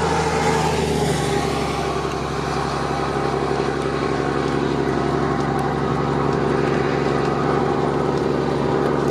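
A car engine idling steadily, with a low even hum.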